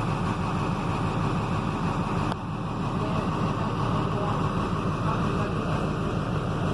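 Volkswagen 17.230 EOD bus under way, its driveshaft and transmission roaring loudly in a steady low drone. A brief click with a short dip in level comes a little over two seconds in.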